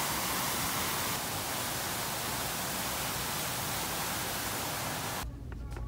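Multi-jet decorative fountain running, its water jets splashing into the basin as a steady rushing hiss, which stops suddenly about five seconds in.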